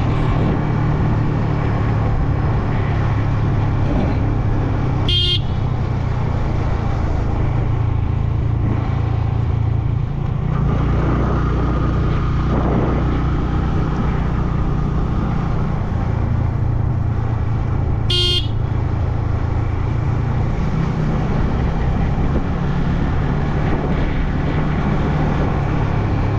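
Yamaha MT-15 motorcycle's single-cylinder engine running steadily under way, with road and wind noise. A horn beeps briefly twice, about thirteen seconds apart.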